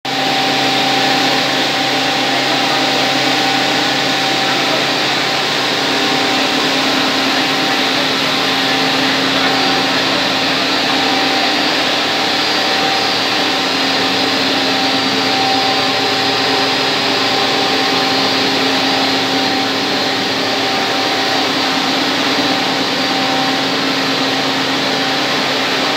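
Swaraj SX-GR250 plastic granules extrusion line running: a steady motor-and-gearbox drone with a constant hum over a whirring noise.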